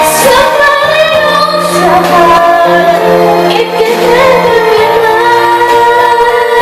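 A female voice singing a song over instrumental accompaniment, with held, gliding notes.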